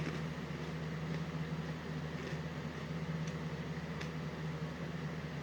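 A steady low hum from a running appliance, with a few faint, brief clicks scattered through it.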